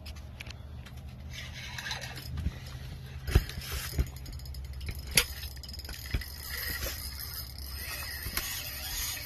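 Fishing tackle clinking and knocking a few times over a steady low hum.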